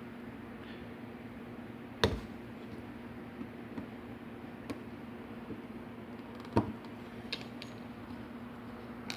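Scattered sharp clicks and knocks of a small lock and tools being handled, two louder ones about two seconds in and near six and a half seconds, over a steady low hum.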